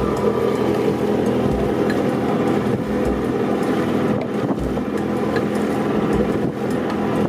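An engine running steadily at an even pitch, with soft low thuds coming at regular intervals about every second and a half.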